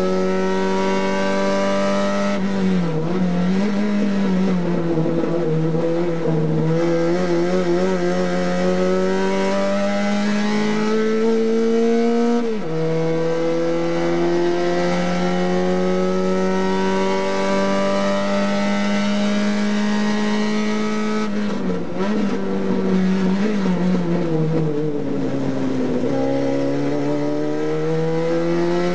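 TC 850 race car's engine heard from inside the cockpit, running hard with its pitch climbing slowly along the straights. The revs waver and fall twice, a few seconds in and again past twenty seconds, and drop sharply once about twelve seconds in.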